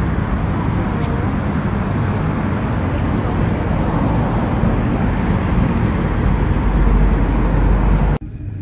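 Steady city street traffic noise, a dense rumble of passing vehicles, with a deeper rumble swelling just before it cuts off abruptly near the end.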